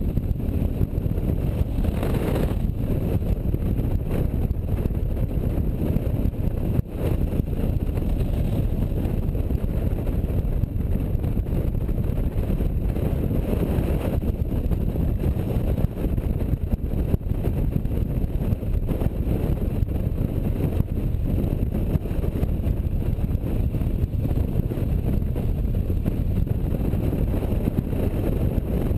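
A touring motorcycle running at road speed, its engine under a steady low rumble of wind buffeting the microphone.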